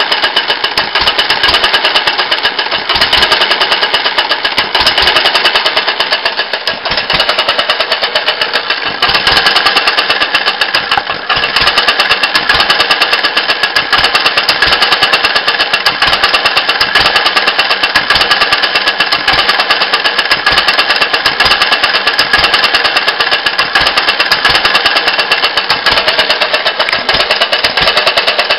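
Homemade open-crank hit-and-miss petrol engine running, its governor holding the exhaust valve open when it speeds up, so it fires in a steady run of sharp knocks with a couple of brief lulls.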